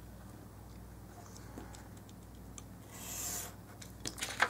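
Quiet handling of paper: a brief scraping rub about three seconds in and a few faint ticks, over a low steady electrical hum.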